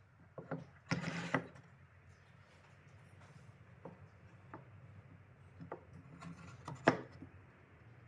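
A wooden block set into and slid along a wooden jig by hand. It makes a short scrape about a second in, scattered light taps, and one sharper wood-on-wood knock near the end.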